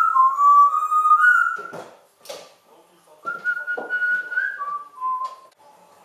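African grey parrot whistling: two whistled phrases of clear held notes, each stepping up and down between a few pitches, with a couple of short harsh sounds between them.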